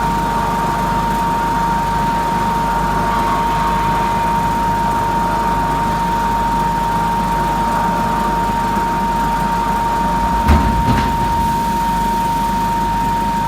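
Veneer peeling line running steadily, a constant machine hum with a high steady whine over a low rumble. One short knock about ten and a half seconds in.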